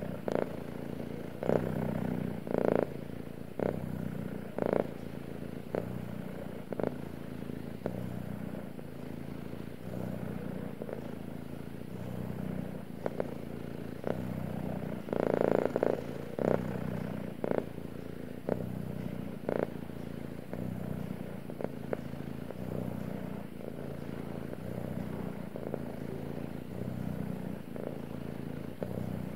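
Domestic ginger tabby cat purring steadily while being stroked, a contented purr. Now and then its tail brushes against the microphone in short, louder bumps, several near the start and a cluster about halfway through.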